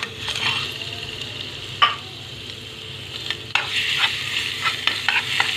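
Minced garlic sizzling in hot ghee in a small steel pan, with a metal spoon clicking and scraping against the pan as it is stirred. The sizzle gets louder about three and a half seconds in as the garlic takes the heat.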